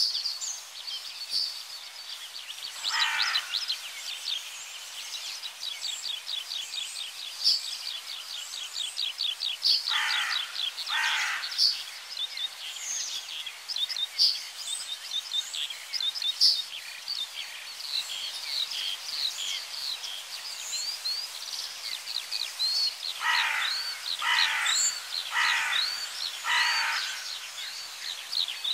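Outdoor birdsong: many small birds chirping and trilling rapidly, with harsh, coarse calls breaking in, once, then twice, then four in a row about a second apart near the end.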